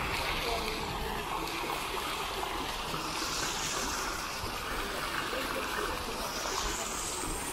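Fountain water jets arcing and splashing into a shallow pool, with low jets bubbling up from the water surface: a steady splashing of water.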